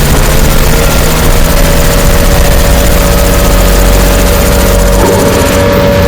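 Loud, dense engine-like rumble from added sound effects, with a steady hum running through it. The deepest part of the rumble drops away about five seconds in.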